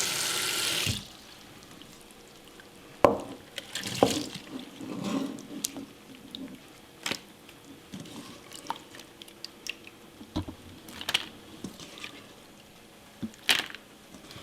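Kitchen tap running into a sink and shut off about a second in, then scattered drips, splashes and clicks as raw shellfish and shrimp are handled in the water.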